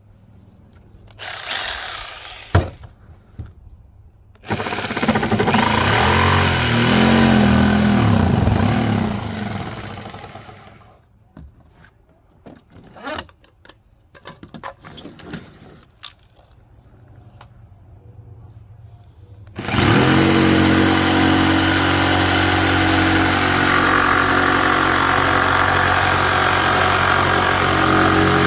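Corded jigsaw: a short run of its motor speeding up and slowing down, some knocks and handling, then from about twenty seconds in it runs steadily and loudly, cutting the access hole for a deck plate through a fibreglass deck.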